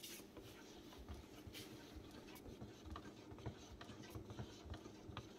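Faint scraping and light irregular taps of a wooden stir stick stirring paint in a metal paint can, over a low steady hum.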